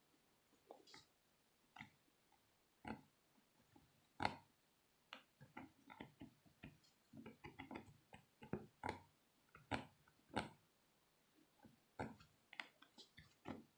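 Faint, irregular clicks and scratches from a small tool picking at an iPhone's charging port while the phone is handled, thickest through the middle.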